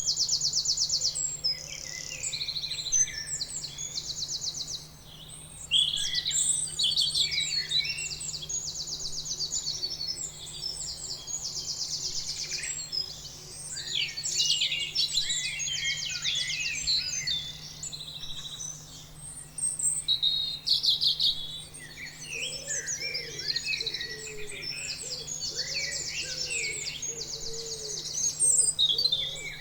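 Several birds singing together, a dense chorus of chirps and rapid trills that repeat in short runs of about a second each, over a faint steady low hum.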